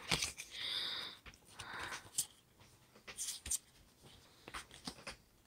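Pokémon trading cards being handled: soft sliding and rubbing of the cards against each other, with a few small clicks.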